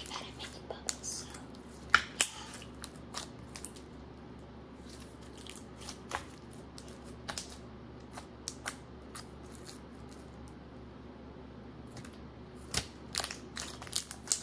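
White slime being kneaded, pressed and squeezed by hand, giving off sharp sticky pops and clicks. They come thickly for the first few seconds, thin out in the middle, and pick up again near the end.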